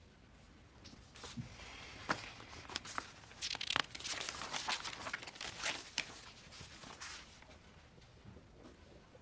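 Sheets of printer paper rustling and crinkling as they are handled, with a run of sharp crackles over several seconds.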